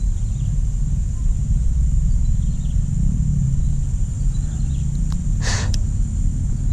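A steady outdoor low rumble with a constant high-pitched drone above it, and a brief hiss about five and a half seconds in.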